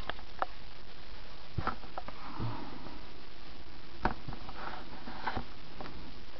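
Scattered short clicks and soft rustles over a steady background hiss.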